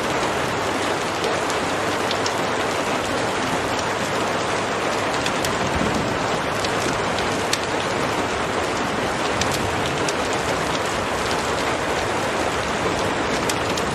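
Heavy rain pouring steadily, with scattered sharp ticks through it.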